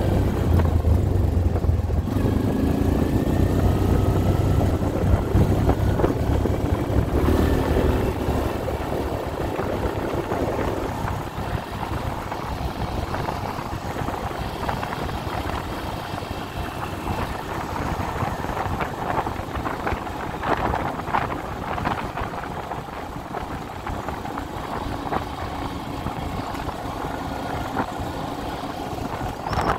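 ATV engine running under way on a gravel and dirt road, with tyre and wind noise. The engine's low hum is strong at first and falls back about ten seconds in, leaving mostly a steady road-and-wind rush.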